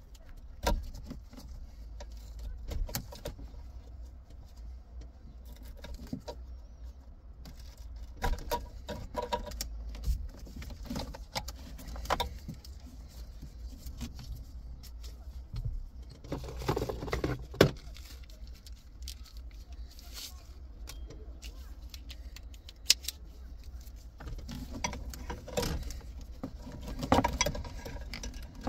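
Scattered clicks and rattles of plastic wiring connectors and dashboard trim being handled by hand inside an opened car dashboard, busier in two stretches in the second half, over a low steady hum.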